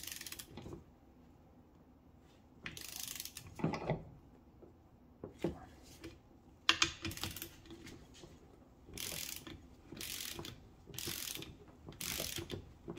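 Torque wrench's ratchet head clicking in short strokes as a bolt is run down through a 14 mm socket, fastening a steel bracket to the top of an air-spring bag. There are about six bursts, with four coming about a second apart near the end.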